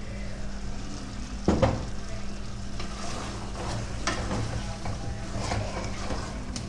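A spoon stirring and scraping through chicken curry in a pressure cooker pot as coconut paste is mixed in, the curry sizzling, with a sharp clunk about a second and a half in.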